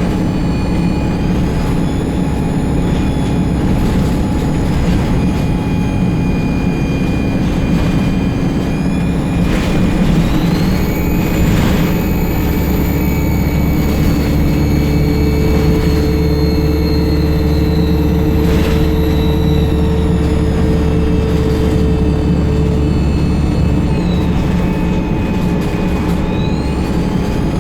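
ADL Enviro 200 bus's diesel engine under way, with a loud high-pitched turbocharger whine. The whine climbs about a third of the way in, holds, drops away past the middle, and climbs again near the end as the engine is loaded and eased off.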